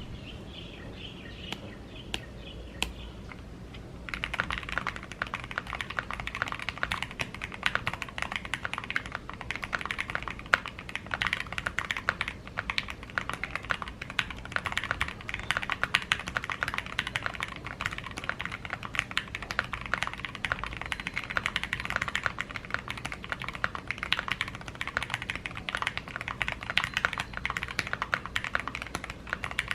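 Typing on a Vega mechanical keyboard with lubed Gateron Fei linear switches on a polycarbonate plate, hot-swap PCB and Equalz C3 stabilizers. A few separate keystrokes come first, then steady fast typing from about four seconds in.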